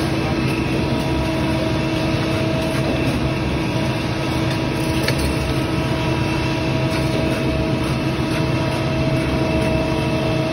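Concrete mixer truck running steadily as it discharges concrete down its chute: a constant engine hum with a steady whine layered over it.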